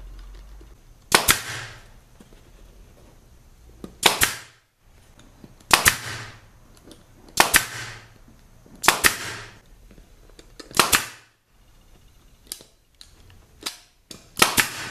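Staple gun firing staples through a fabric seat cover into the seat base: seven loud sharp snaps, roughly one every one and a half to two seconds, with two fainter clicks near the end.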